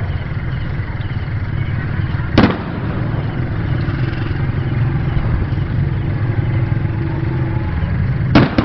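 Fireworks exploding: two sharp bangs, one a couple of seconds in and a quick double near the end, over a steady low rumble.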